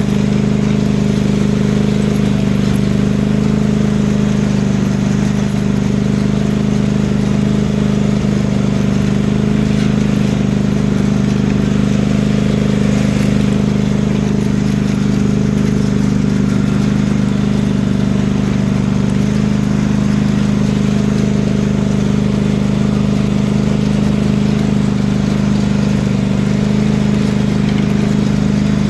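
Lawn mower engine, fitted with a truck exhaust pipe, running loud at one steady speed.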